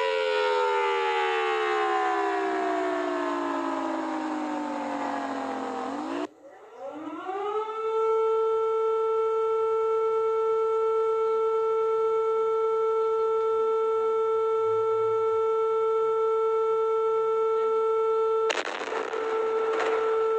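Siren-style emergency alarm winding down in pitch, cut off abruptly about six seconds in. A second alarm siren then winds up and holds one steady tone. A burst of noise lies over the tone near the end.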